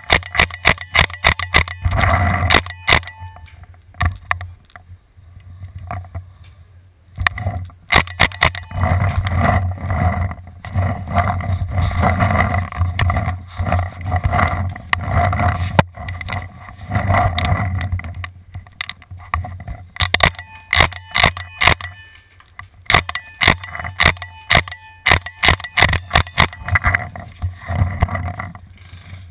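Paintball markers firing in rapid strings of sharp shots, several a second, in runs near the start, around eight seconds in and through the last third. Between the strings there is a steadier, denser noise.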